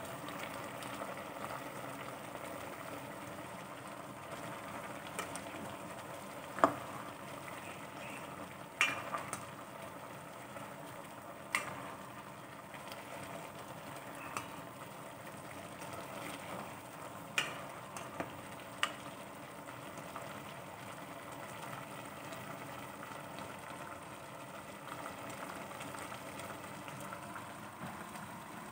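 Chicken and onions sizzling in oil in an aluminium pot while being stirred with a spatula, the steady sizzle broken by several sharp knocks of the spatula against the pot, the loudest about six and a half seconds in.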